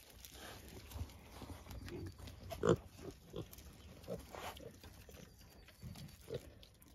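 Kunekune pigs grunting, a handful of short separate grunts, the loudest one about two and a half seconds in.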